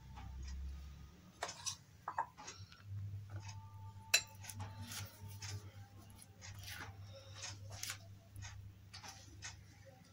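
Metal spoon and silicone spatula scraping and tapping against glass mixing bowls as flour is added to a creamed butter-and-egg mixture and folded in: scattered soft scrapes and clicks, one sharper tap about four seconds in. A faint low steady hum sets in about three seconds in.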